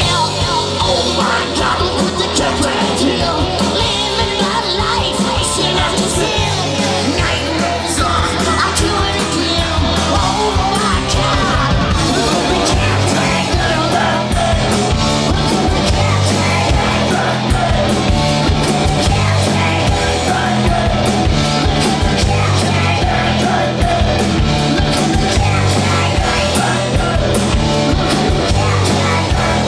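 Live hard-rock band playing loud and steady, with distorted electric guitars, bass and a drum kit driving a steady beat, and a male lead vocalist singing into a handheld microphone.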